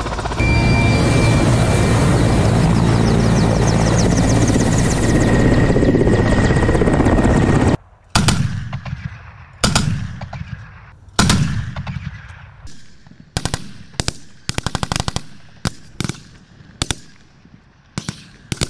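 Helicopter flying low overhead, a steady rotor and engine noise that cuts off abruptly about eight seconds in. Rifle and machine-gun fire follows: single shots and short rapid bursts, each with an echoing tail.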